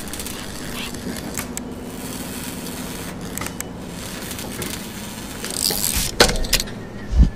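Machine sound effects for an animated laser-etching machine: a steady electric hum with scattered clicks, a hiss about five and a half seconds in, then two thumps near the end, the second the loudest.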